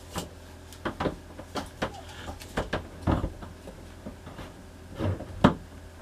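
Plastic clicks and knocks of an Oxygenics Fury handheld shower head being worked into its plastic wall holder: a dozen or so short, irregular taps, the loudest about five and a half seconds in.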